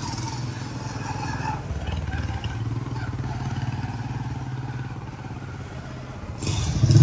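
Small motorcycle engine running steadily with a low hum, growing louder near the end as it comes closer.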